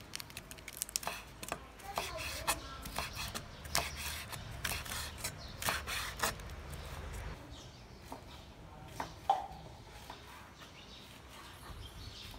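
Large kitchen knife slicing fresh cabbage into thin shreds on a wooden cutting board: a quick, irregular run of cuts, each stroke ending in a tap of the blade on the board, thinning out after about seven seconds, with one louder knock about nine seconds in.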